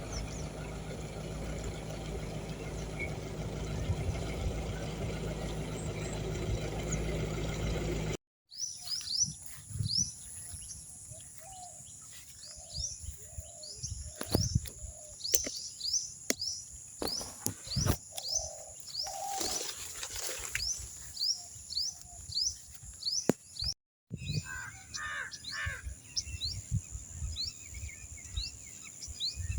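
Outdoor ambience of birds: a steady low rumbling noise for the first several seconds, then, after an abrupt cut, many short, quick bird chirps repeating over a steady high tone, with some clicks. After a second cut near the end, the chirps go on with lower bird calls mixed in.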